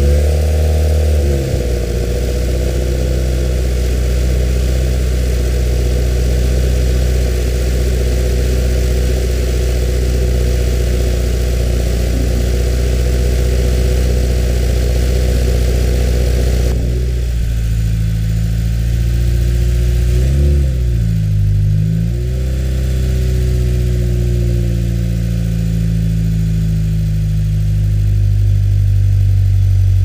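2015 Subaru WRX's turbocharged flat-four with a muffler-delete axle-back exhaust, idling just after start-up; its note settles about a second in. About seventeen seconds in the idle drops lower and smoother, and around twenty seconds in the engine note dips and rises twice before it settles back into a steady idle.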